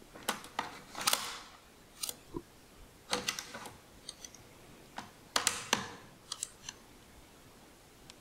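Bolt of a Springfield M1903A4 bolt-action rifle being worked by hand: sharp metallic clicks and clacks as the bolt is raised, drawn back and pushed home, in several separate clusters.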